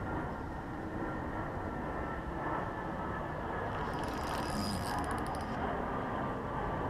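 Steady low outdoor rumble, with a brief run of rapid, fine clicking about four seconds in.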